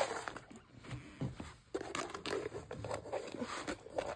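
Rustling, crinkling and scraping of rolled diamond painting canvases being handled and shifted, in irregular bursts.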